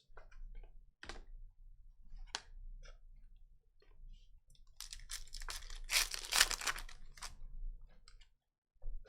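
Trading cards being handled, with scattered light clicks and taps. About five seconds in comes a louder stretch of a wrapper crinkling and tearing, lasting about two seconds.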